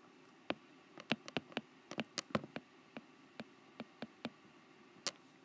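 Stylus tapping and clicking against a tablet screen while handwriting, a quick irregular run of sharp clicks that stops about five seconds in.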